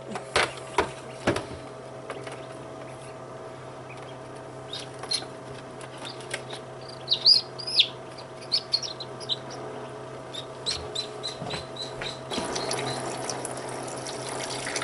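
Newly hatched chicks peeping in high chirps, loudest about halfway through, with a quick run of short peeps later, while they are lifted out of a plastic incubator. Sharp plastic clicks of handling come near the start. About twelve seconds in, water starts pouring from a cup into the incubator.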